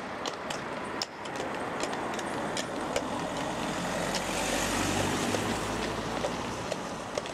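A car driving past close by, its engine and tyre noise swelling to a peak about halfway through and then fading, over the irregular clip-clop of horses' shod hooves walking on the road.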